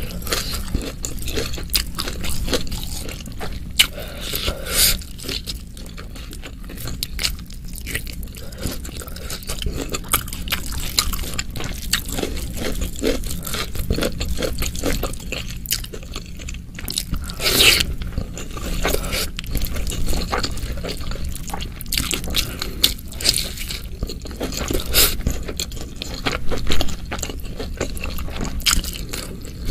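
Close-miked eating sounds: fingers squishing and scooping rice through oily, chilli-laden oseng mercon, mixed with chewing, with many short wet clicks and smacks throughout.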